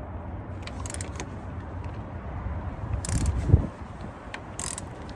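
Hand tools clinking on metal while a Mk1 Volkswagen's CV axle bolts are worked loose by hand: a few scattered metallic clinks and one dull knock about three and a half seconds in, over a steady low rumble.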